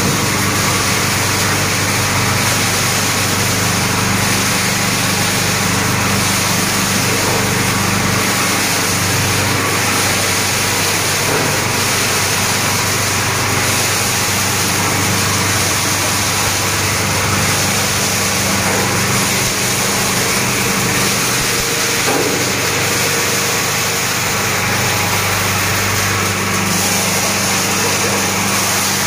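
LD washing plant running: electric motors driving belts and a screw conveyor give a loud, steady machine drone with a low hum.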